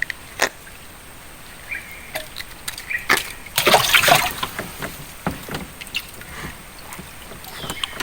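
Water splashing and sloshing close by, among scattered small clicks and knocks, with a louder splash about three and a half seconds in.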